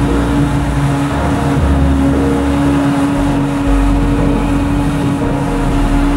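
Claas Jaguar 990 forage harvester running steadily under load while chopping maize, a continuous machine drone with a steady hum over a shifting low rumble.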